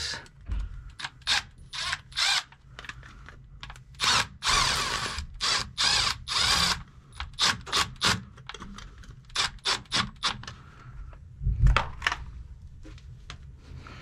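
Cordless power driver run in many short trigger bursts and a few longer spins, turning the hose-clamp screw on the pump discharge pipe's rubber coupling to loosen it. A dull bump near the end.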